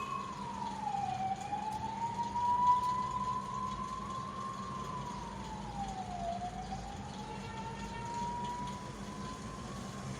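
A siren wailing in a slow rise and fall: its pitch drops quickly, then climbs slowly, twice over.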